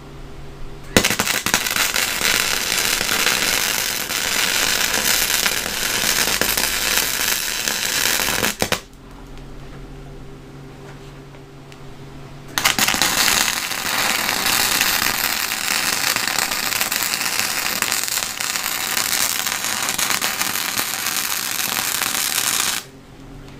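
Harbor Freight 90 amp flux-core wire welder welding rebar: the arc crackles steadily in two runs, the first starting about a second in and lasting about eight seconds, the second after a pause of about four seconds and lasting about ten seconds, stopping just before the end. A low steady hum is heard in the pause.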